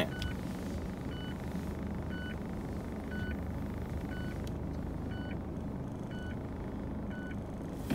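Car's reverse-gear warning beeper sounding inside the cabin, one short beep about every second while the car backs into a parking space, over the low hum of the engine.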